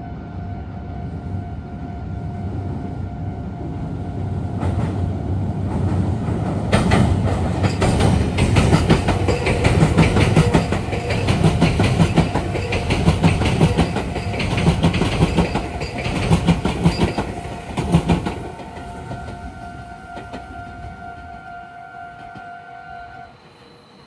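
A Meitetsu train passes, building from about four seconds in and loudest for roughly ten seconds, its wheels clattering in a quick rhythm over rail joints and junction points, then fading away. Under it a level-crossing warning bell rings steadily; it stops briefly near the end and starts again.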